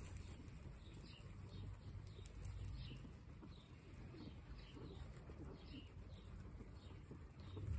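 Guinea pigs nibbling fresh grass, faint against a low steady rumble, with short bird chirps repeating about twice a second.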